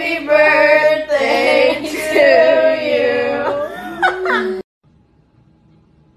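Voices singing a birthday song, with long held, wavering notes. The singing stops abruptly about four and a half seconds in.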